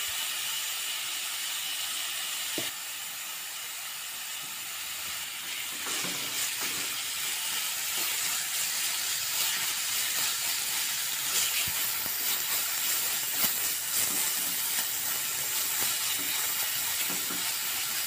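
Masala paste sizzling in hot oil in a nonstick kadai, a steady hiss, with a single tap a few seconds in. From about six seconds in, a spatula stirs and scrapes through the paste in irregular strokes.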